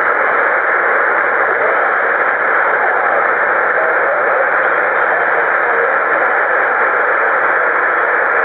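Two-way radio receiver hiss: steady, loud static in the voice band from the speaker, with no one transmitting.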